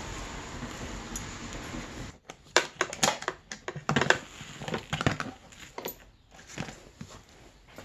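A steady hiss that cuts off about two seconds in, then irregular clicks and knocks from a ratchet wrench and the plastic tail light housing being handled as its retaining nuts come off and the assembly is pulled free.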